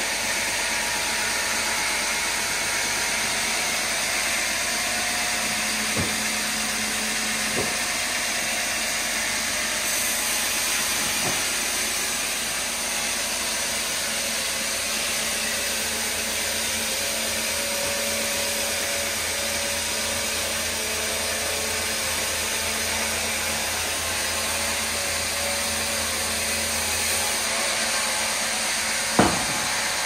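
Band sawmill machinery running with a steady whirring hiss. A low hum joins from about halfway and stops near the end; there are a few light knocks, and a sharp thump near the end.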